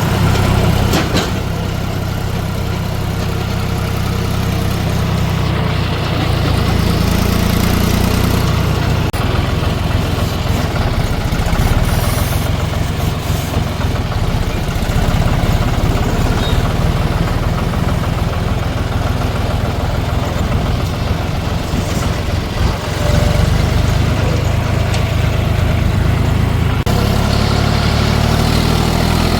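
John Deere 5310 tractor's diesel engine running steadily under way, its low note shifting a few times as engine speed changes.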